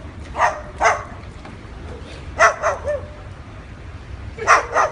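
White cockatoo mimicking a dog, giving short dog-like barks in three quick groups of two or three.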